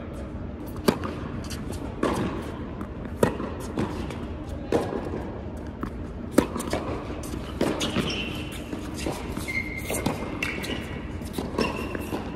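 Tennis rally on an indoor hard court: sharp pops of racquets striking the ball and the ball bouncing, about one every second or so, echoing in the hall. Between about 8 and 11 s in, sneakers squeak on the court surface.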